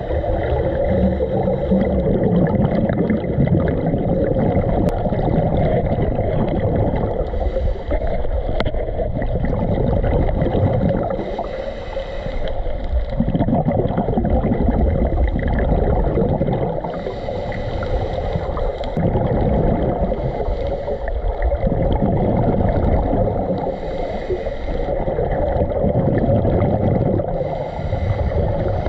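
Underwater sound of a scuba dive through a camera housing: a steady muffled rumble and hum, with divers' regulator exhalations bubbling up in bursts every few seconds.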